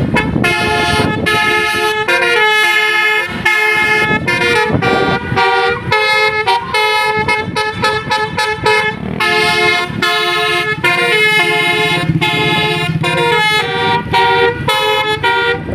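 A tour bus's basuri musical air horn (telolet) playing a quick melody, note after note with short breaks between phrases, with a low rumble underneath.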